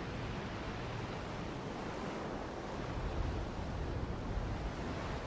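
Steady, even rushing noise of a nature-sound background bed.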